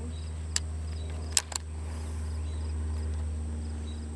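Steady low hum under faint insect chirps repeating at an even rhythm, with three sharp clicks in the first second and a half.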